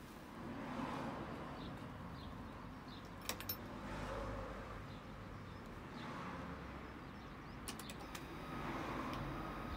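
Short double clicks of switches being worked on the control panel of an IHI Dynajet 2.6 micro gas turbine generator, over faint background noise; a faint steady tone comes in near the end.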